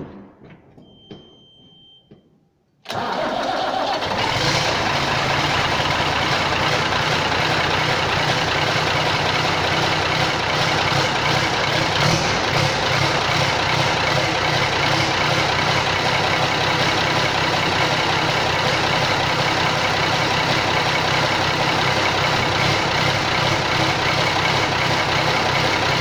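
Ford 8730 tractor's diesel engine, its silencer removed, starting about three seconds in and then running loud and steady.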